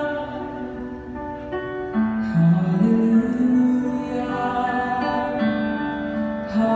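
Live slow ballad music in an arena, heard from high in the stands: long held notes over a deeper line that steps up and down.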